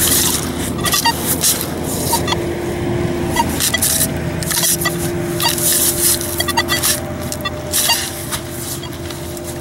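Nokta Makro Legend metal detector giving a low steady hum that comes and goes, with a higher tone at times, as its coil is swept over wet saltwater sand; the detector is not yet running smoothly in the salt water. Small waves wash in over the gravel with repeated short hisses.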